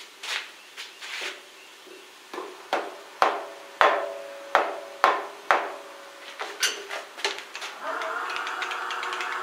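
About a dozen taps of a soft-faced hammer on a metal part on the milling machine, each with a brief metallic ring. They are light at first, hardest in the middle, and then tail off, knocking the part into alignment while it is indicated in. A steady hum starts near the end.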